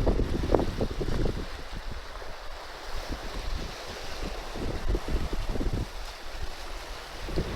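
Wind buffeting the microphone over the wash of sea surf, in gusts that are strongest for the first second and a half and then ease off.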